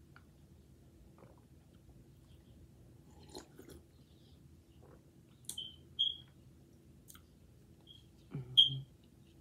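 A person eating instant noodles: chewing, with a few short sharp squeaky clicks spread over the second half, the loudest near the end.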